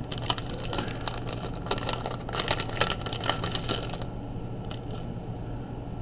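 Plastic wrapping on a replacement laptop battery crinkling and rustling as it is handled, busy for about four seconds and then dying down, over a steady low hum.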